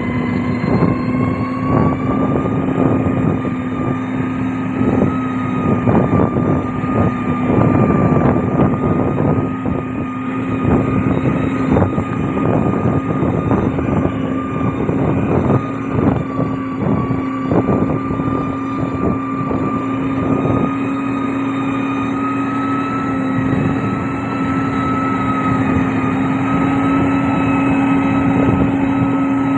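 Heavy diesel road-construction machine running steadily under load, its engine tone rising slightly about two seconds in, over irregular crunching and knocking like gravel under the machine.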